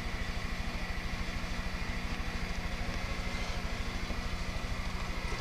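An engine running steadily at idle, with an even low throb of several beats a second.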